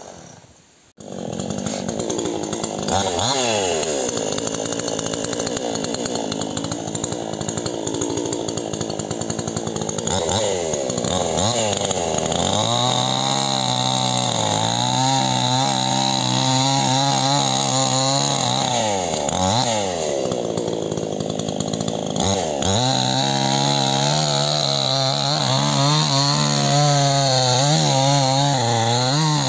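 A petrol chainsaw running at high revs as it cuts into the trunk of a rubber tree. After a brief drop about a second in, the engine speed sags and climbs back several times between long steady stretches of cutting.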